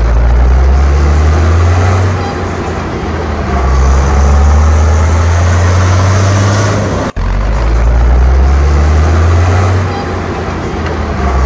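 Heavy truck engine running with a loud, steady low drone. The sound cuts out abruptly for a split second about seven seconds in, then carries on.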